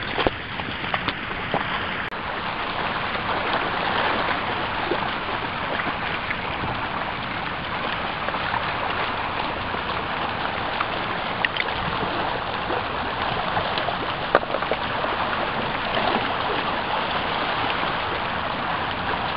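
Steady rush of shallow water running over stones at the shoreline, with a few brief knocks near the start.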